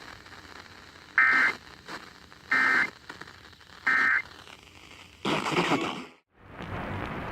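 Emergency Alert System end-of-message signal: three short bursts of warbling SAME data tones, evenly spaced about a second and a half apart, closing the alert. Then a brief burst of noise, a moment of dead air, and steady radio static.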